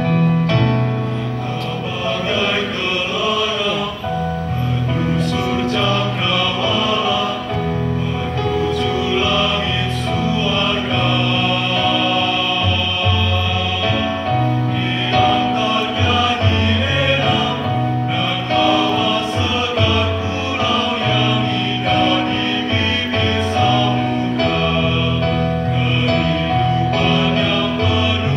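Mixed choir of men and women singing in parts, holding chords that change every second or two.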